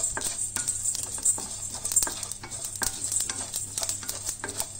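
Whole spices (black peppercorns, coriander and cumin seeds, cinnamon bark) being stirred with a wooden spatula in a steel kadai as they lightly fry, giving irregular quick clicks and scrapes of seeds and spatula against the metal pan.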